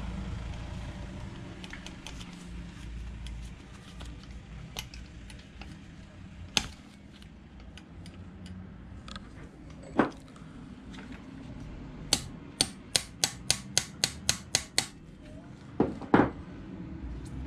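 Metal hand tools clicking and knocking during engine work. A quick run of about nine evenly spaced clicks comes about twelve seconds in, with a few single louder knocks before and after.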